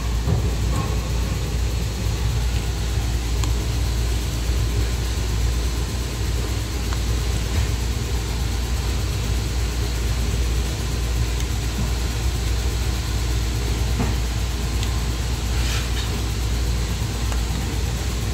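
Steady low mechanical hum of running machinery, unchanging throughout, with a few faint ticks.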